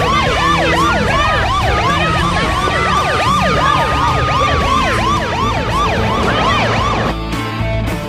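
Several police car sirens sounding at once: quick overlapping yelps over a slower rising-and-falling wail. They stop suddenly about seven seconds in.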